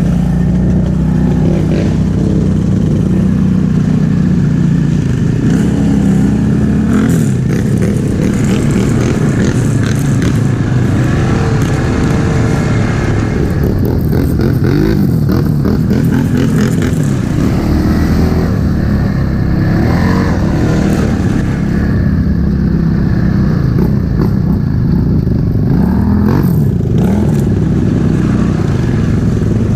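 ATV engine heard from on board while riding a rough trail, its pitch rising and falling with the throttle, with rattles and scrapes from the machine over bumps.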